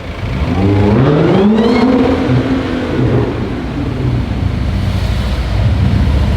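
Audi A7's supercharged 3.0 TFSI V6 through a loud custom exhaust, revving up: the engine pitch climbs for about a second and a half, holds briefly, then falls back to a steady low rumble.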